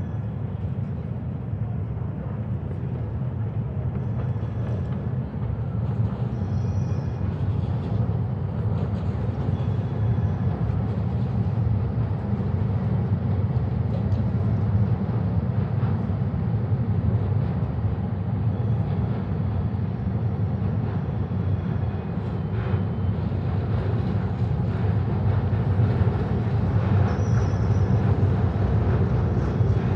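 Steady low rumble of city ambience at night, the kind of distant traffic and wind noise heard by a city riverfront, with a few faint, brief high-pitched tones now and then.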